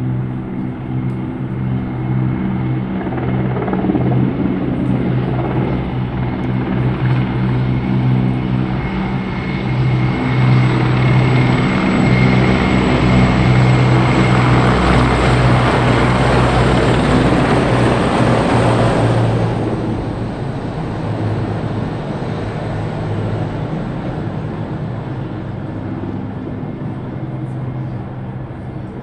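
Formation of military helicopters flying overhead, with the rotor beat and a thin high turbine whine. The sound swells to its loudest about two-thirds of the way through, drops off fairly suddenly, then fades as they move away.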